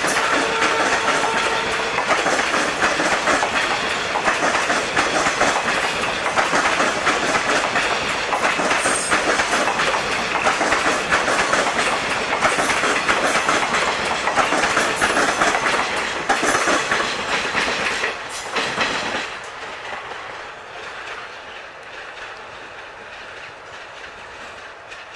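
Indian Railways passenger coaches rolling past, their wheels clattering over the rail joints in a steady clickety-clack. About three-quarters of the way through, the clatter drops off sharply and stays much quieter.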